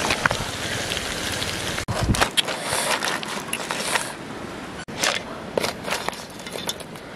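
Scattered clicks and scrapes of a spoon against a metal cooking pot and boiled crab shells, over a steady outdoor hiss.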